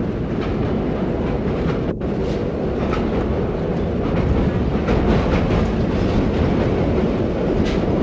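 New York City subway car running on the tracks: a steady, dense rumble with occasional clicks of the wheels over rail joints.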